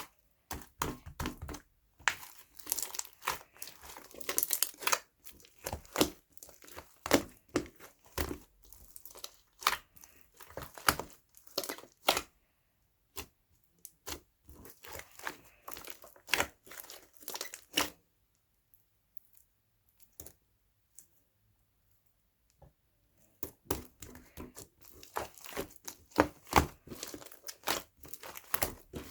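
Irregular crinkling and rustling, handled in quick bursts, with a pause of several seconds about two-thirds of the way through.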